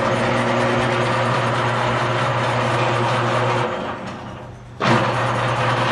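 Electric automatic wire stripper machine running, with a loud rasping noise over its steady motor hum as a thick cable feeds through the rollers and blade. The rasping drops away about four seconds in and starts again a second later.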